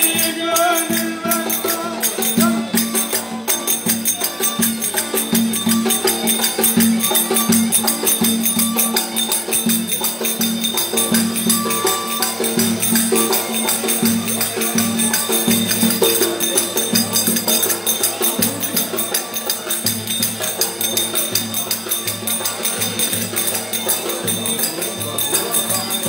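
Black Sea kemençe bowed in a lively folk dance tune, with a davul drum beating along.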